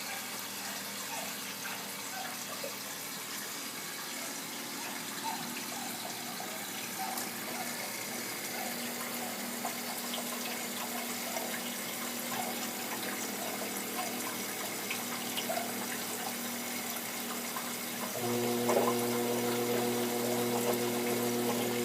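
Bosch washing machine running with water flowing and trickling steadily, then about eighteen seconds in a steady electric motor hum sets in. The machine has a fault in which its drum does not turn.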